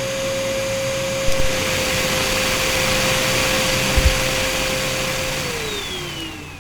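Pet grooming blower (dog dryer) motor running with a loud rush of air and a steady whine, with two brief knocks. About five seconds in it is switched off and spins down, the whine falling in pitch as the noise fades.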